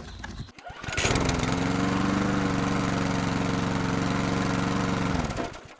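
Echo PB-2520 handheld gas leaf blower's small two-stroke engine starts up about a second in and runs at a steady speed, then dies away near the end.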